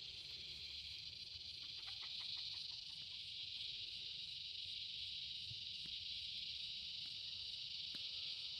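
Steady, high-pitched chorus of insects, with a short rapid run of calls about two seconds in.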